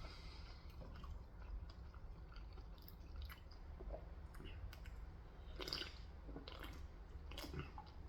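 A person chewing Korean fried chicken close to the microphone, soft and faint, with scattered small clicks of the mouth and food.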